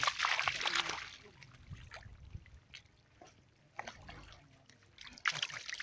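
Splashing and trickling in shallow muddy water, loudest in the first second and again near the end, with scattered small drips and spatters between.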